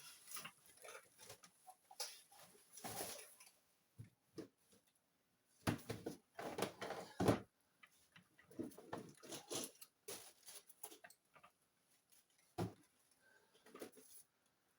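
Rummaging through small tools and objects on a workbench: irregular rustling, scraping and light clicks and clatter, with a sharper knock near the end.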